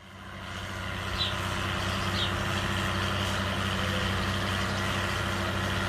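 A steady engine hum, like heavy machinery idling, fading in over the first second, with two short high chirps about one and two seconds in.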